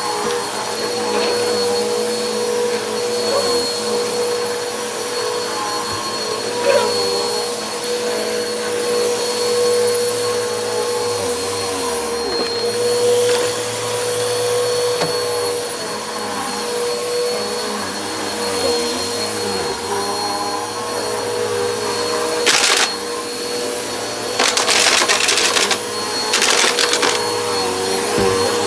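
Bissell Helix Turbo upright vacuum running steadily on carpet, its motor giving a constant whine. Near the end come a few louder crackling bursts as grit is sucked up the nozzle.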